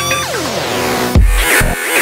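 Electronic dance track (electro with dubstep bass): a synth line ends in a long falling pitch sweep, then about a second in heavy sub-bass and drum hits come in, the drop of the track.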